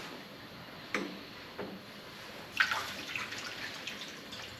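Water being added to a CNC plasma table's water tray, splashing and dripping, with a few light knocks.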